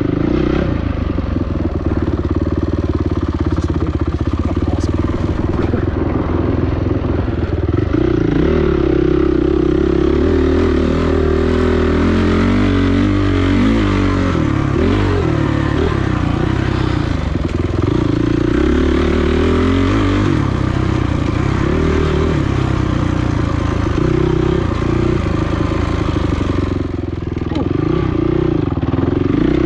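Dirt bike engine running hard and continuously, its revs rising and falling as it is ridden over the trail, with a brief drop in revs near the end.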